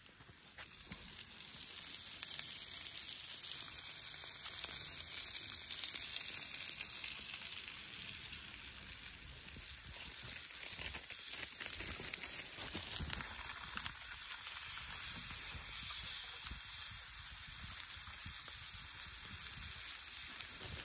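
Food frying in a cast iron skillet: a steady sizzling hiss dotted with fine crackles, building up over the first couple of seconds and then holding.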